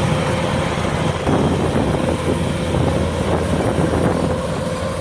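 Kubota DC-105X combine harvester's diesel engine and threshing machinery running steadily under load while it cuts rice.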